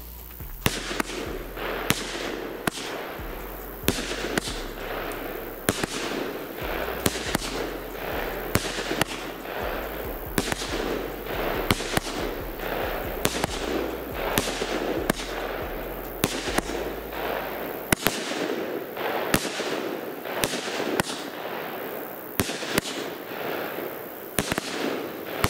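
Lesli Idris consumer fireworks battery (cake) firing shot after shot, about one to two a second, each a sharp bang followed by a noisy crackling trail.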